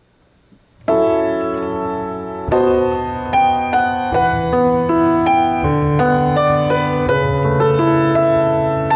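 Piano playing a slow piece: a full chord is struck about a second in, then further notes and chords follow every half second or so over held bass notes, each note ringing on.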